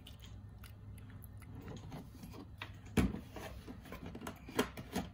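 Scattered small clicks and knocks of objects being handled, with one sharper knock about three seconds in and a few smaller ones near the end.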